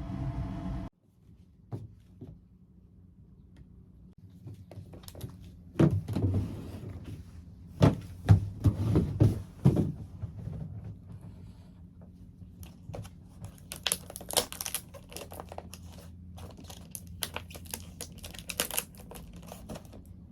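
A steady rumble cuts off about a second in. Then, in a quiet room, come a few knocks and thumps of things being handled, then a run of light crinkling and clicking.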